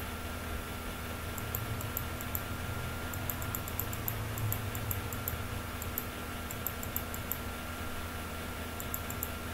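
Computer mouse scroll wheel clicking in quick runs of a few ticks at a time, over a steady low electrical hum.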